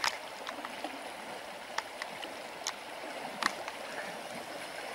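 River water rushing steadily over a riffle, with a few short sharp clicks heard now and then over it.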